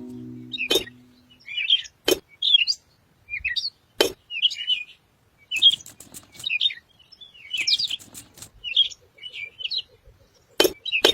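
Small birds chirping in quick, repeated short calls, with a few sharp clicks scattered among them.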